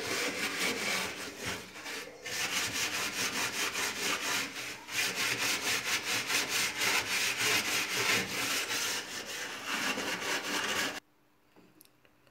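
Hand scrubbing the metal floor of a small countertop electric oven: quick back-and-forth rubbing strokes, several a second, that stop suddenly about eleven seconds in.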